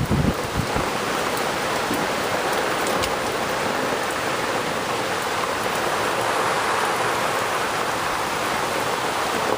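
Heavy rain pouring down in a steady, even hiss, with low gusts of wind buffeting the microphone in the first second.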